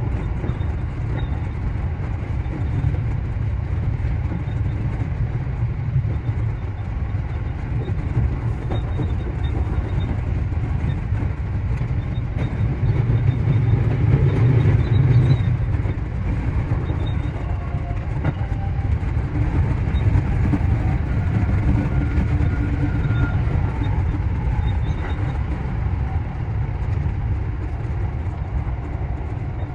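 JR Central 315 series electric train running along the line, heard from inside the train: a steady rumble of wheels on rail that swells briefly about halfway through.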